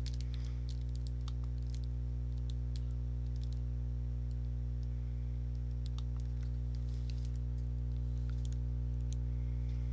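Steady low electrical hum, several tones stacked together, with scattered light clicks through it.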